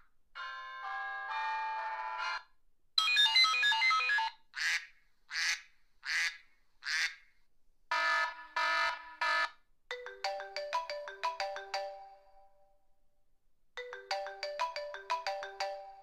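A string of short electronic tone sound effects, one after another: a held chord, a quick burst of chiming notes, four short swelling sweeps, and three beeps. In the second half a rapid ringtone-like melody of quick notes plays twice.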